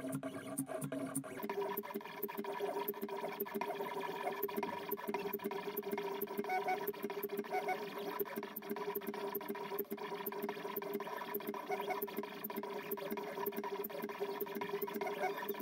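Stepper motors of a Zonestar Z6F 3D printer converted to a pen plotter whining as the belt-driven X and Y axes move the pen while it draws. The pitch steps up to a higher steady whine about a second and a half in, with light ticking throughout.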